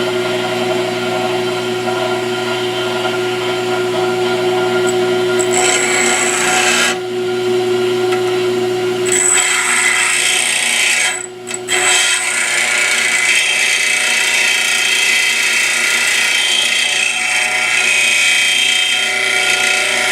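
Pedestal grinder running with a steady motor hum while a high-speed steel lathe tool bit is ground by hand against the wheel. The rasping hiss of grinding grows strong about five seconds in and breaks off briefly twice as the bit is lifted away.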